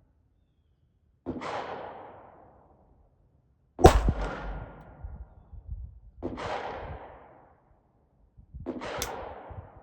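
Four gunshots at the range, each with a long echoing tail. The loudest is a sharp crack about four seconds in.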